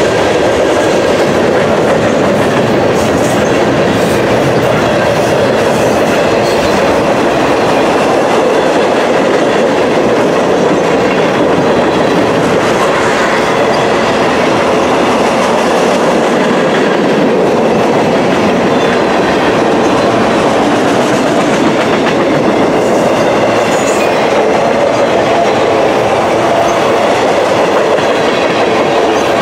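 Freight cars of a mixed manifest train rolling past close by: a loud, steady rumble of steel wheels on rail with scattered clicks and clatter from the wheels and cars.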